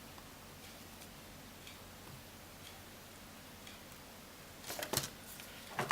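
Faint, even ticking about once a second, then a few sharper clicks and scrapes near the end as small tools and iPhone 5 parts are handled during screw removal.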